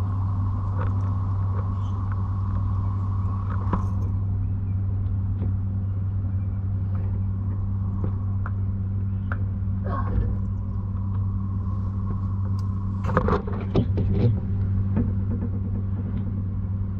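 Steady low rumble of road traffic from a nearby main road. A few short knocks, with a cluster of sharper knocks and rustles about 13 seconds in.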